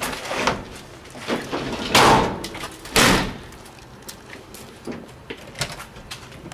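A series of thumps and knocks, the two loudest about two and three seconds in, with lighter clicks between.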